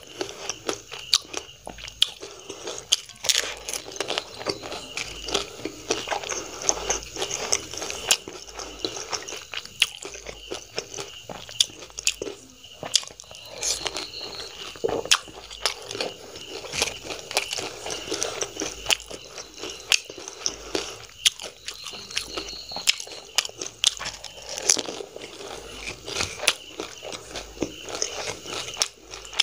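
Close-miked eating of pani puri: crisp, hollow fried puri shells crunching as they are bitten, then wet chewing of the water-soaked puris, one mouthful after another with many sharp cracks.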